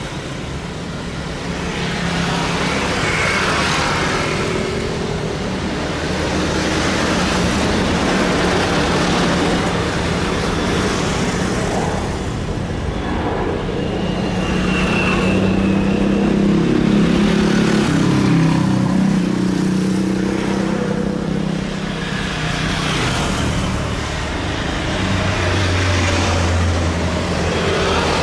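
Airbus A330-300's Rolls-Royce Trent 700 jet engines at low taxi power as it turns onto the runway, mixed with road traffic noise that swells and fades every few seconds. A brief high whine rises out of it about fifteen seconds in.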